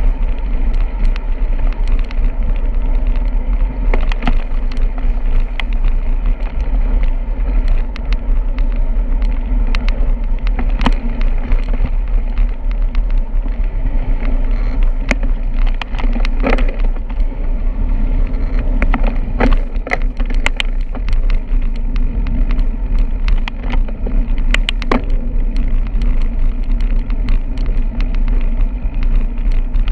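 Steady rumble of riding a bicycle along a road, low and constant, with scattered sharp clicks and rattles a handful of times.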